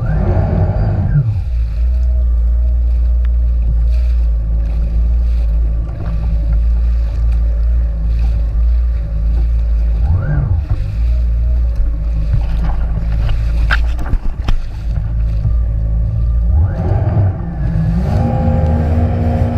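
Jet ski engine running under a heavy, steady low rumble. Its note rises and falls a few times as the throttle changes.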